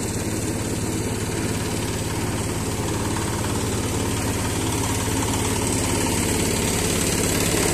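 Small engine of a concrete mixer running steadily at constant speed, with a fast, even low pulse. It gets slightly louder about two-thirds of the way through.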